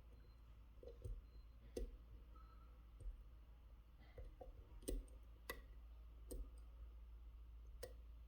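Faint, irregular clicks of a lock pick working the serrated pins of a Mul-T-Lock Interactive cylinder, with a handful of sharper clicks as pins catch and set.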